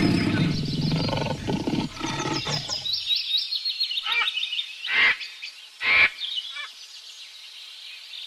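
Jungle ambience sound effect: a deep rumbling animal sound that stops about three seconds in, then quick high bird chirps and three loud separate calls, the last two the loudest.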